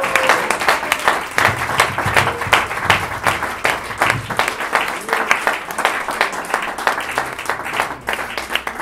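A group of people applauding together: dense, steady clapping that begins to thin out near the end.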